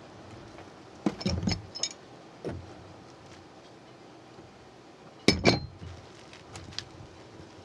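Metal clinks and clanks as a small handheld tubing cutter is clamped onto stainless steel tubing and turned to cut it. There is a cluster of light clinks about a second in, and one louder clank with a short ring about five seconds in.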